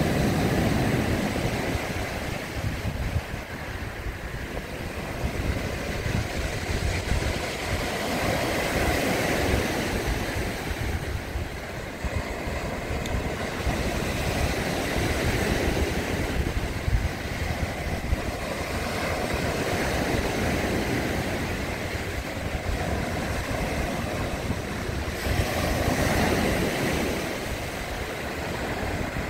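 Sea waves breaking and washing up the shore, the surf swelling and easing every few seconds, with a low rumble from wind on the microphone.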